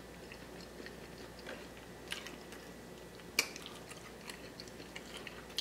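Close-miked chewing of a mouthful of food, soft and wet, with scattered small mouth clicks and one sharper click a little past halfway.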